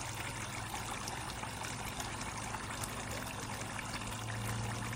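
Water trickling and splashing steadily in a plastic toddler water table, over a steady low hum.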